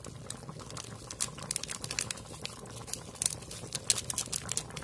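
Chicken curry simmering in a kadhai, its bubbles popping and spitting in quick, irregular crackles that come thicker after about a second in, over a low steady hum.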